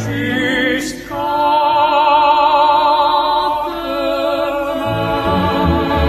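Operatic singing with wide vibrato: after a quick breath, one long note is held for a couple of seconds, then the phrase moves on. Fuller orchestral sound swells in underneath near the end.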